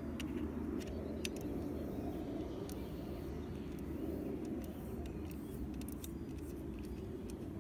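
Steady low background hum with a few faint, scattered clicks of a metal 8 mm nut driver working the anemometer's top hex nut as it is unscrewed.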